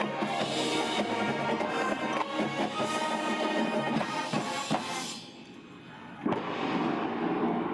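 Marching band's brass, woodwinds and drumline playing loudly together. About five seconds in the music cuts off into a brief lull, then a single sharp hit comes a little after six seconds and the sound fills in again.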